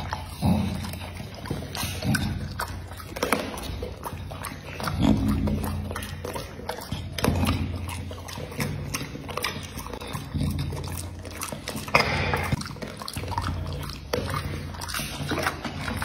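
Pit bull puppy chewing and crunching food close to the microphone: repeated crisp crunches with wet mouth and smacking sounds.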